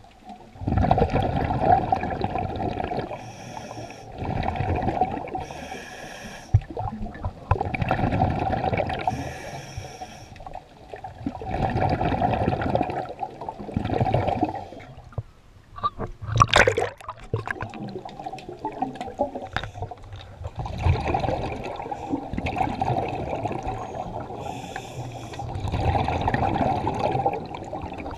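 A scuba diver's breathing heard underwater: bursts of exhaled bubbles through the regulator every three to four seconds, with hissing inhalations between them. A short, sharp clatter about sixteen seconds in is the loudest moment.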